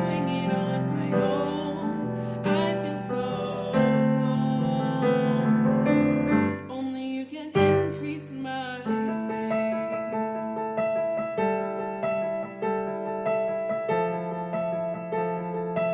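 Slow piano music, fuller in the first half. After a brief dip about halfway through it thins to steady, repeated piano chords.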